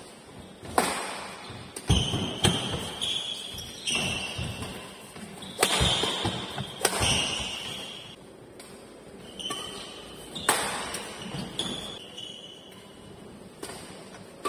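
Badminton rackets striking a shuttlecock in a doubles rally: a string of sharp hits about a second apart, each echoing in a large hall, with short high squeaks of court shoes on the floor between them.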